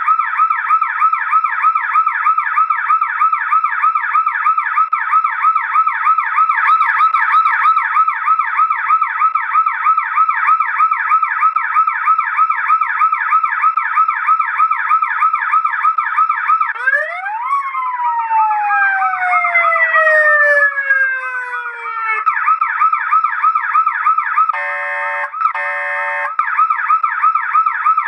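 HF-2020A police motorcycle electronic siren sounding a fast warbling tone. About seventeen seconds in it sweeps up sharply, then glides slowly down for several seconds before returning to the fast warble. Near the end come two short buzzing, horn-like blasts.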